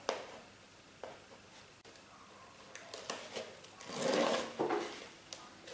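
Protective backing strip being peeled off double-sided tape on a paper cone, a rustling peel loudest about four seconds in, with a few small clicks and paper handling.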